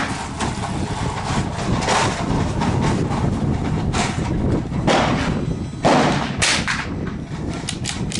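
Strong wind buffeting the microphone with a constant low rumble. Several sharp cracks of gunfire come through it, the loudest about six seconds in.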